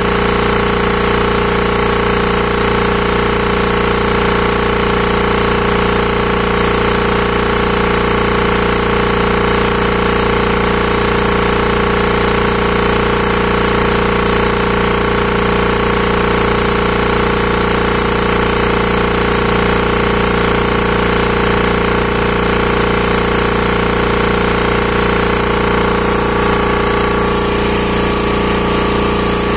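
Hatlapa W 220 piston air compressor running steadily under test: a loud, even mechanical clatter over a constant hum.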